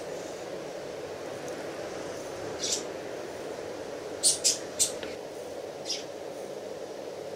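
Short, dry rustling ticks as powder is tipped from a small scoop into a shotgun shell hull: one about a third of the way in, a quick cluster of three just past halfway, and one more soon after. A steady low hum runs underneath.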